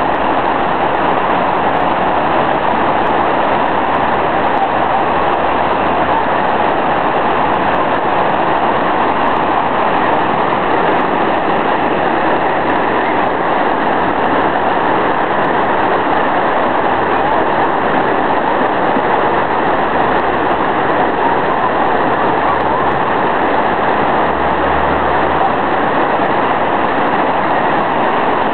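Muddy flash-flood water rushing down a street, a steady, loud rush of churning water breaking around an obstacle.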